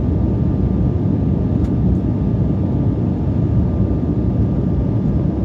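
Steady cabin noise of an Embraer 175 airliner in flight: a low, even rumble of its twin GE CF34 turbofan engines and rushing air, with a faint steady whine above it.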